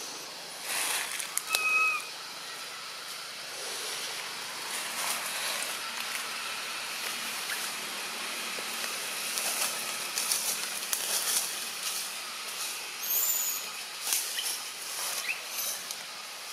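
Leaves and branches rustling and crackling as a macaque shifts its hold in a tree, with a few short, clear chirps, one about a second and a half in and one near the end.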